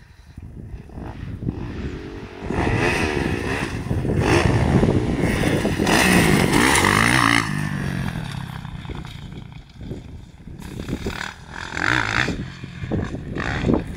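Motocross dirt bike engine revving hard through the track, its pitch rising and falling with the throttle. It is loudest around the jump in the middle, then fades, and surges again briefly near the end. Wind rumbles on the microphone throughout.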